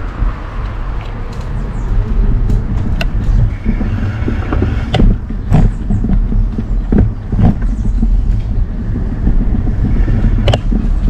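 Mobility scooter rolling over paving: a steady low rumble with scattered sharp knocks and rattles as it goes over bumps.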